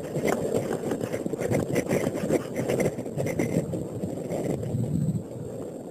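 Handling noise on the camera's microphone: an irregular rumbling and rubbing with scattered clicks, which drops to a quieter hiss about five seconds in.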